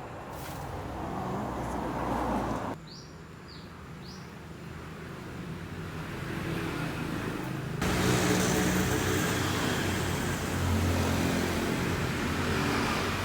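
Vehicle and road-traffic noise, a steady rumble with a low engine hum, cut abruptly twice; the quieter middle stretch holds a few short high chirps.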